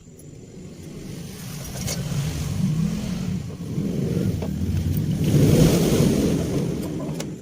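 A motor vehicle engine running, growing steadily louder over several seconds, loudest shortly before the end, then easing off a little.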